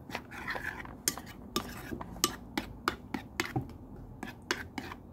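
A spoon stirring curd into thick ground coriander pachadi in a bowl. It scrapes and clinks against the bowl's side in quick, irregular taps, about three or four a second.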